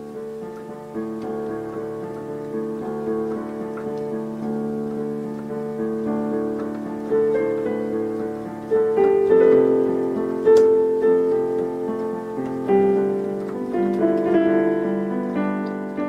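Outro music: a slow piano piece of sustained notes and chords, swelling louder around the middle.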